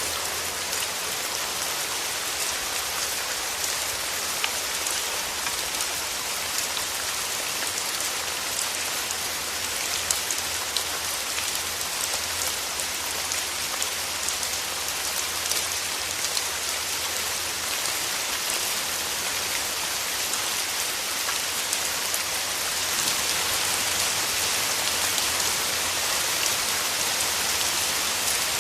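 Steady rain falling, a dense hiss with many small scattered drop ticks, getting a little heavier about two-thirds of the way through.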